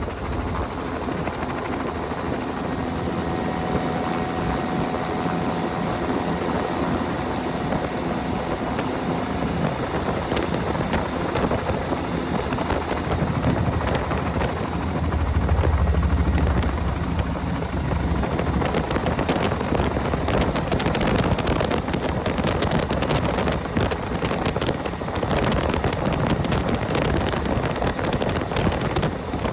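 Helicopter rotor and engine noise heard from aboard a doors-off helicopter, mixed with wind rushing over the microphone. It runs steadily, with a heavier low rumble about halfway through.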